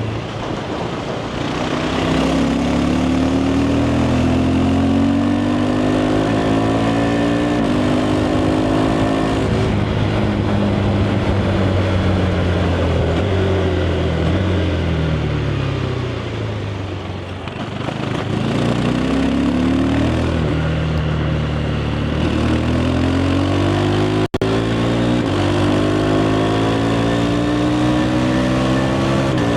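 KTM 390 Adventure's single-cylinder engine on the stock exhaust, pulling hard through the gears. The pitch climbs and drops sharply at each quickshifted upshift. In the middle the throttle comes off and the pitch falls away, then the bike accelerates and shifts up again.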